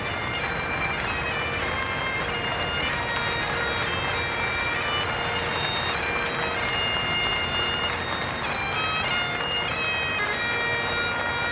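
Great Highland bagpipe playing a tune, the chanter stepping from note to note over a steady drone.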